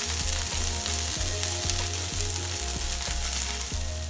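Chicken masala sizzling in a nonstick frying pan while it is stirred and scraped with a wooden spatula: pepper chicken being dry-fried with no water added.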